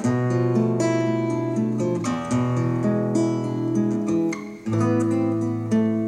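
Two acoustic guitars playing an instrumental passage of picked notes and strummed chords, with no singing. Near the end a strong strummed chord rings on.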